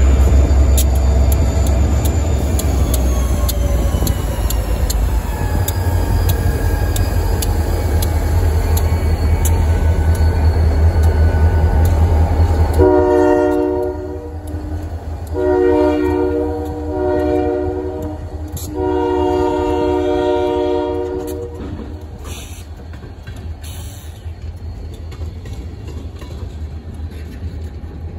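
Buffalo & Pittsburgh EMD GP40-3 diesel locomotives passing close with a deep engine rumble. About thirteen seconds in, the horn sounds four blasts, long, long, short, long: the grade-crossing signal. Then the tank cars roll by with a quieter wheel clatter.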